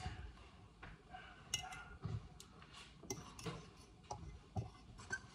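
Fork stirring cake batter in a ceramic mixing bowl: faint, irregular clicks and taps of the fork against the bowl.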